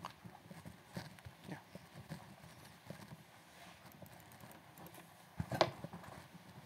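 Laptop keyboards being typed on by many people: scattered faint key clicks at an irregular pace, with a louder cluster of knocks about five and a half seconds in.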